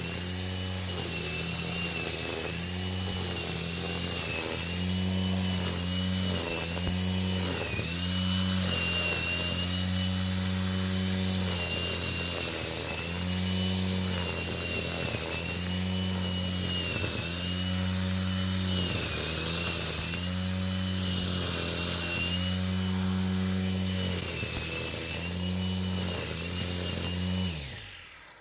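Electric angle grinder running continuously, its steady high whine dipping slightly and recovering again and again as it cuts through grass. It is switched off near the end and spins down.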